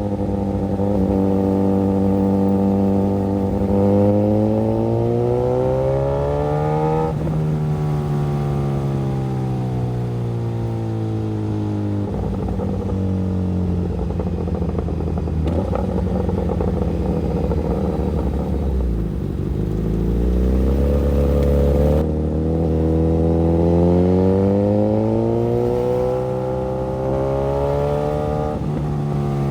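Suzuki GSX-S1000's inline-four engine under way. Revs climb steadily to about seven seconds in, then fall away slowly to a low rumble near twenty seconds as the bike slows. Revs then climb again and drop near the end.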